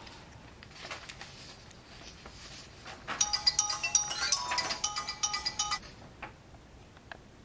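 Mobile phone ringtone: a bright electronic melody of quick, short notes. It starts about three seconds in and stops abruptly under three seconds later.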